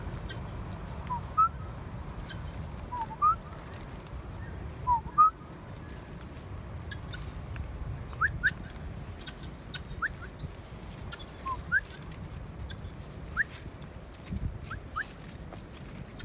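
Helmeted guineafowl giving short, thin whistled contact notes, mostly rising in pitch, scattered through the flock and often in pairs, over a low steady rumble.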